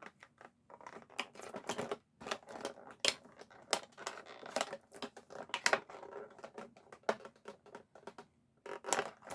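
Knife blade cutting into a stiff plastic blister pack: irregular sharp clicks and crackles as the blade bites and the plastic flexes and snaps.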